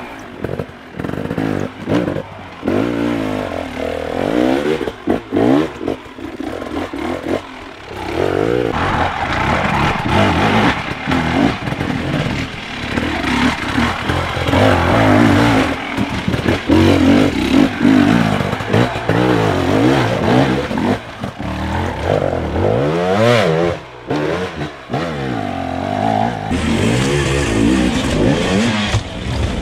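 Enduro dirt bike engines revving hard in short bursts, the pitch climbing and falling again and again as the throttle is worked, under load on steep, rocky climbs.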